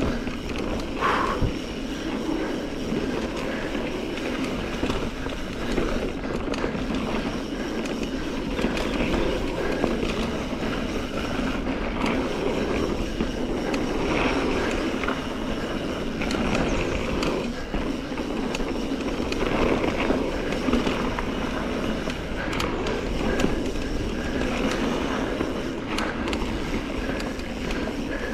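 Mountain bike rolling fast down a dirt singletrack trail: steady tyre noise on the dirt, with rattles and knocks from the bike over bumps throughout.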